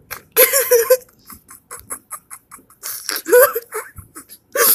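A high-pitched voice making short, wordless vocal sounds in three bursts, with quick clicks in between.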